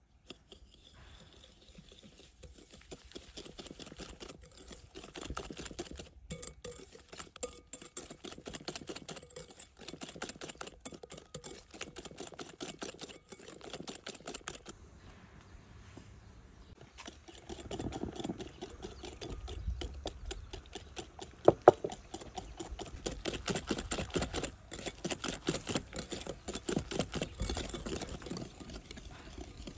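Metal wire whisk beating egg batter in a glass bowl: fast, continuous clicking of the wires against the glass. The clicking eases for a moment about halfway, then picks up more strongly, with one sharp knock a little after.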